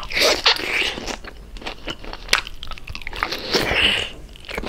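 A person biting and chewing crispy deep-fried pork belly (lechon kawali), with repeated sharp crunches of the crackling skin between stretches of chewing.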